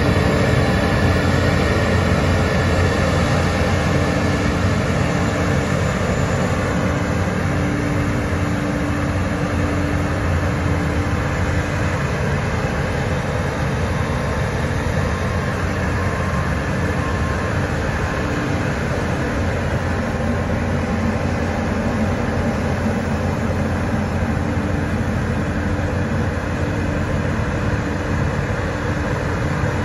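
New Holland CR10.90 combine harvester, its FPT Cursor 16 six-cylinder diesel, running steadily under load while harvesting: a continuous engine and threshing drone with a low hum, easing a little in loudness over the stretch.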